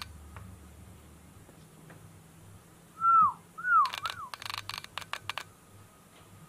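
Three short whistled bird chirps, each dipping in pitch, from a bird video playing on a laptop, about three seconds in. They are followed by a quick run of sharp clicks.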